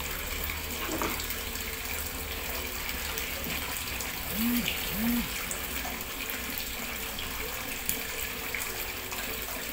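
Steady background hiss throughout, with two faint short rising-and-falling tones about halfway through.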